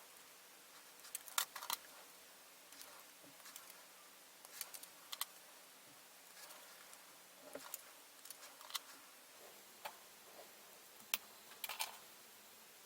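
Plastic nippers cutting model-kit parts off plastic sprues: irregular sharp snips and clicks, the loudest a little over a second in and again near the end.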